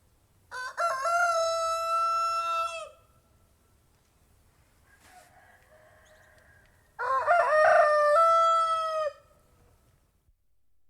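Domestic rooster crowing twice, each cock-a-doodle-doo about two seconds long with a broken, stepped opening and a long held final note.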